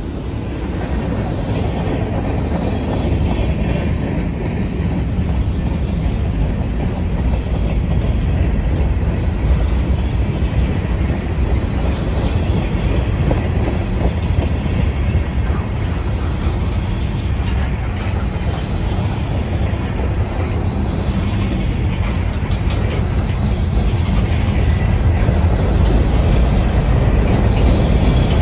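Freight cars rolling past at speed: a steady rumble and clatter of steel wheels on the rails. Brief high wheel squeals come in a few times in the second half.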